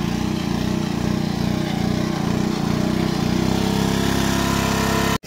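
Small engine of a water pump running steadily under load, pumping water out of a pond through a pipe. The sound drops out abruptly for a moment near the end.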